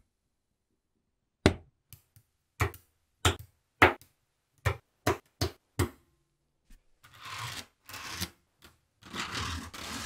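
Magnetic balls snapping together: about eight sharp clicks over a few seconds as a panel of balls is fitted onto a magnetic-ball wall, then two short stretches of scratchy rubbing as the balls are pressed and slid against each other.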